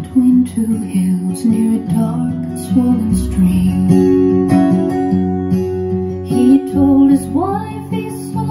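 An acoustic guitar plays a run of plucked notes in a folk ballad, with a sliding rising note about seven seconds in. It is played back through JBL 4344 studio monitor loudspeakers driven by a Sansui AU-D907F amplifier.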